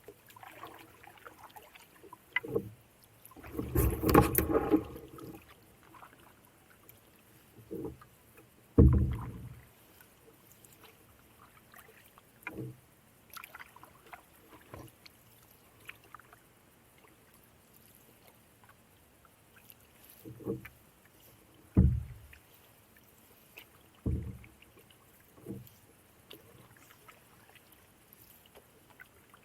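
Canoe paddling: irregular paddle strokes and splashes in the water, a few seconds apart, with quiet stretches between.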